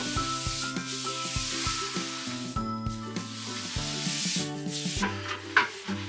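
Wallpaper paste being spread over a hardboard wall in long rubbing strokes, two long strokes and then shorter ones, with a sharp tap about five and a half seconds in.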